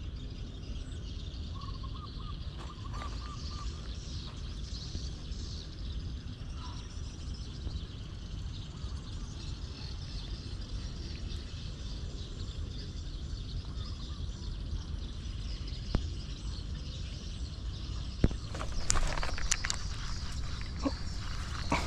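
Outdoor rice-field ambience: a steady low rumble with a constant high chorus of insects and birds, and a few short bird chirps about two seconds in. Near the end comes a cluster of sharp clicks and rustling.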